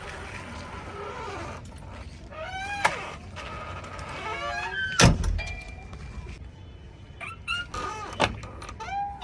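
JCB 3DX backhoe loader at work, its engine and hydraulics whining up and down in pitch over a steady low rumble. Three sharp knocks come through, the loudest about halfway.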